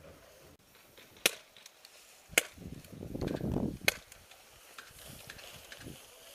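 Three sharp airsoft gun shots spread over about two and a half seconds, with rustling movement between the second and third.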